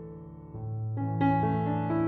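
Background music: soft piano chords, with new notes coming in about half a second in and again just past a second.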